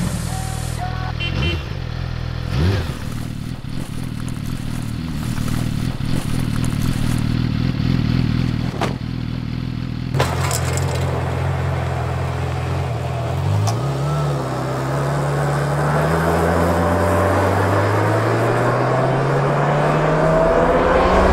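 Sport motorcycle engine running steadily, then revving and accelerating, its pitch climbing through the second half before cutting off suddenly. Two sharp clicks near the middle.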